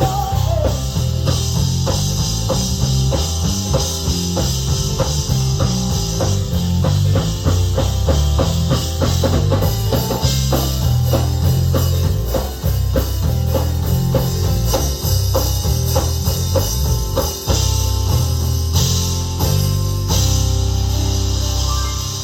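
Instrumental gospel band playing: organ over a drum kit keeping a steady beat and a prominent electric bass line.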